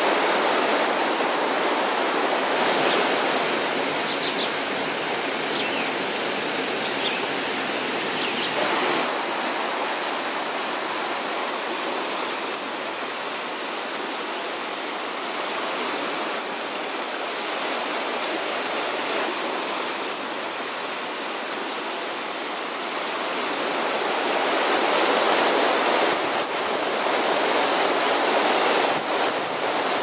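River rapids: whitewater rushing steadily over rocks. It drops somewhat about nine seconds in and grows louder again in the last several seconds.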